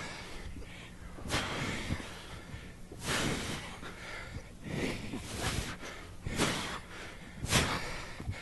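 Heavy, forceful breaths from men straining through push-ups, about six hard exhalations spaced a second or so apart.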